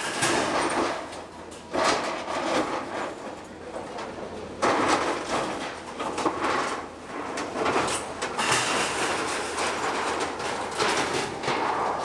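Hidromek hydraulic excavator with a demolition grapple tearing down a corrugated-iron and brick shed: metal sheeting scraping, crunching and clattering with falling rubble. Sudden loud crashes come about two seconds and about five seconds in.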